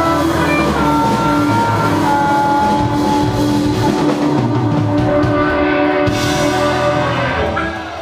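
Live rock band: a harmonica played through a handheld microphone sounds long held notes over electric guitar and drum kit. The music dies down near the end.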